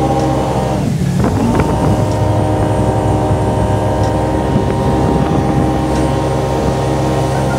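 Motorboat engine running steadily at speed while towing a tube, a continuous drone, with wind noise on the microphone.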